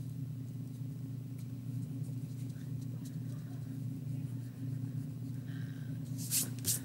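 A steady low hum, with a few short, quick rubbing strokes of a pencil's eraser on paper near the end.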